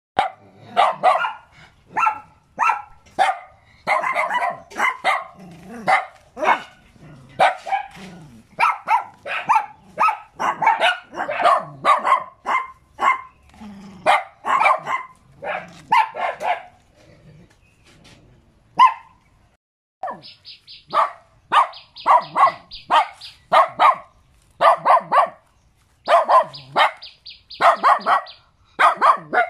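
Small curly-coated white dogs barking, short sharp barks in quick runs of several a second, with a pause of about two seconds a little past the middle.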